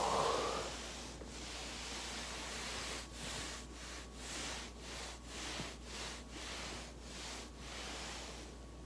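Soft rubbing and rustling of a body rolling back and forth on a foam roller, swelling and fading in an even rhythm about twice a second from about three seconds in.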